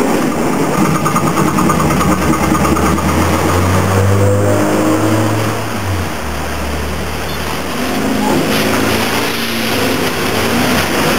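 Birney safety car tram heard from inside the car as it runs along the street: its electric traction motors whine up in pitch as it accelerates, about three seconds in and again near eight seconds, over a steady low hum of running gear.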